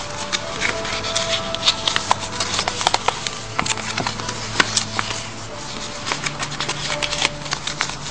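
A sheet of paper being folded and creased by hand, with frequent crisp crackles and clicks, over faint background music.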